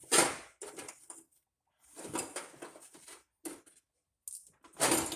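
Steel sockets and small hand tools clattering and scraping in an old metal toolbox as they are rummaged through by a gloved hand, in irregular bursts with short pauses.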